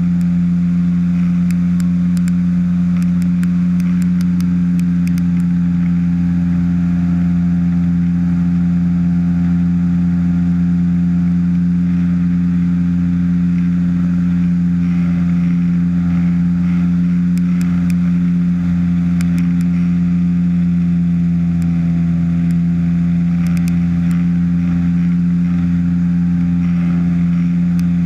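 Ultralight trike's engine and pusher propeller droning steadily in cruise flight: a constant low hum with a hiss of rushing air over it.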